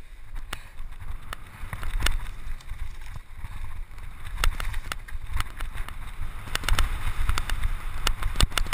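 29-inch Scott Scale hardtail mountain bike riding fast over loose gravel and dry leaves: steady tyre noise with frequent sharp clicks and rattles from the bike over bumps, and a low wind rumble on the microphone.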